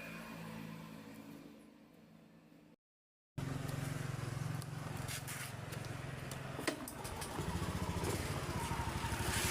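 Engine running at idle, dying away over the first couple of seconds, then after a brief cut running again more loudly. Near the end its speed rises into a strong, even pulsing beat.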